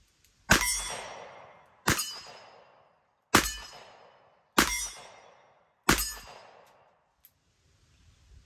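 Five shots from a Smith & Wesson 625 revolver firing .45 ACP, evenly spaced about a second and a half apart, each with a trailing ring that fades over about a second.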